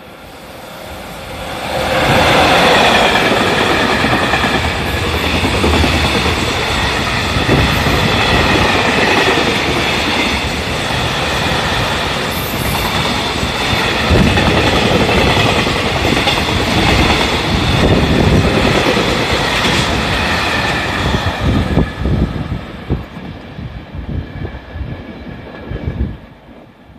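EF66 electric locomotive hauling a container freight train through a station: the sound builds over the first couple of seconds as the locomotive arrives, with a high whine over the first stretch, then the long rake of container wagons clickety-clacks steadily over the rail joints before fading in uneven clatters near the end as the last wagons pass.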